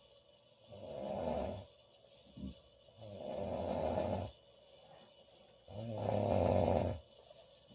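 A girl snoring loudly in her sleep: three long snores, each about a second long and roughly two and a half seconds apart, with a short snort between the first two.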